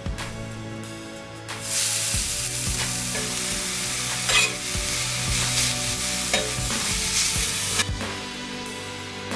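Food sizzling in a hot frying pan. It starts about a second and a half in and cuts off sharply near the end, over background music.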